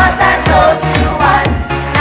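Show choir singing in unison over a pop backing track with a steady drum beat and bass.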